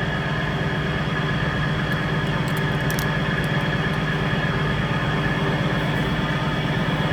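Peterbilt semi truck's diesel engine idling steadily, with a few faint clicks about two and a half to three seconds in.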